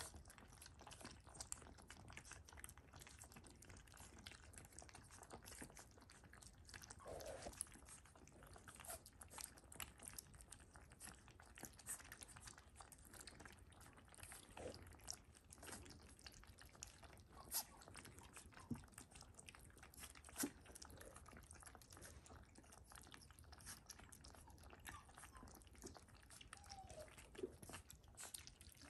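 Several Shiba Inu puppies eating wet, mushy puppy food from a stainless steel saucer bowl: faint, steady lapping and chewing with many small clicks and smacks, and a brief squeak now and then.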